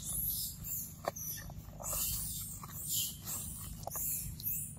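Small sounds from a monkey: a few sharp little clicks and short high hissy noises over a steady low hum.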